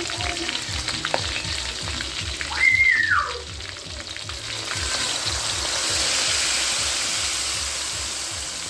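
Food frying and sizzling in a pan while being stirred, a steady hiss with small crackles that grows a little louder in the second half. About three seconds in, a short high-pitched tone rises, holds and falls away, louder than the frying.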